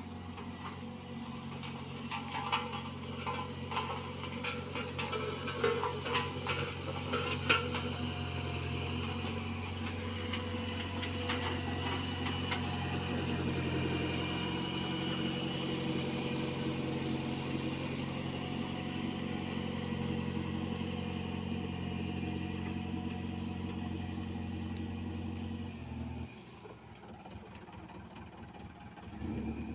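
Diesel engine of heavy road-paving machinery running steadily, with scattered knocks and clanks over the first several seconds. The engine sound falls away about 26 seconds in and comes back just before the end.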